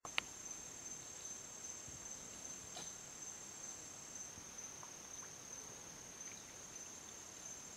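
Crickets trilling: a steady, high-pitched, finely pulsed trill, two close voices at first and one after about four seconds. A sharp click comes just after the start, with a few faint ticks later.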